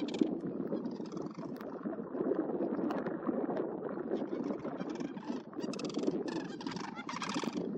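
A flock of sandhill cranes calling: many overlapping rolling, rattling calls, with louder, higher calls from nearer birds in the second half.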